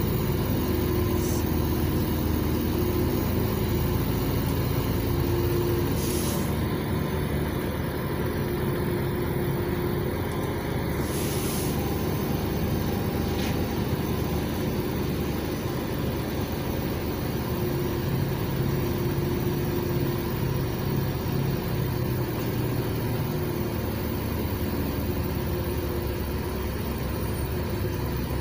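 Cabin sound of a LiAZ 5292.67 city bus on the move: its compressed-natural-gas YaMZ-53624 inline-six engine runs with a steady drone and hum, slowing into queued traffic near the end.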